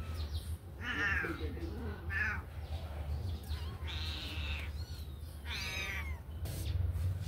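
Kitten meowing, about four high-pitched meows roughly one to two seconds apart, the third one drawn out longer.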